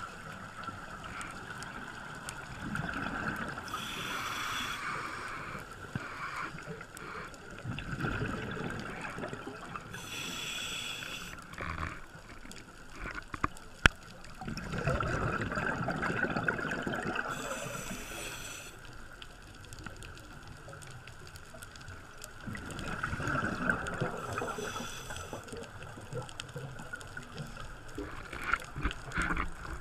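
Scuba diver breathing through a regulator, heard underwater through the camera housing: a brief hiss and a gurgling rush of exhaled bubbles, repeating about every six to seven seconds. A single sharp click sounds about halfway through.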